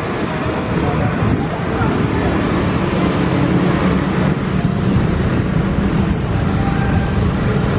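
Steady rumble of a Boeing 737's jet engines as the airliner taxis, with wind buffeting the microphone. The low rumble builds slightly a couple of seconds in.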